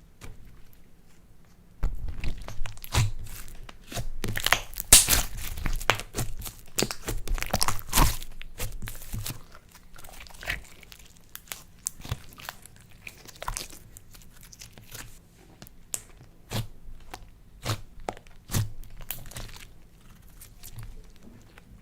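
Slime mixed with clay being kneaded and pressed by hand, giving a run of sticky crackles and small clicks. It is busiest and loudest from about two to nine seconds in, then thins out to scattered clicks.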